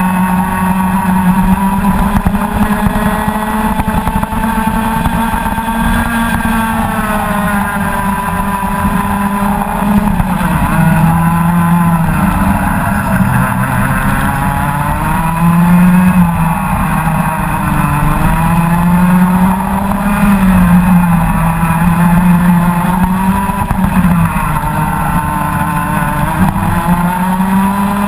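Rotax Max Senior 125 cc two-stroke kart engine running hard on track. Its pitch climbs as the kart accelerates and drops several times as it slows for corners, then climbs again.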